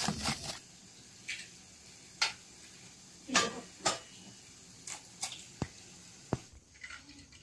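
Kitchen utensil and egg sounds on a nonstick frying pan: about a dozen sharp taps and knocks, irregularly spaced, from a spatula working the pan and eggs being cracked into it.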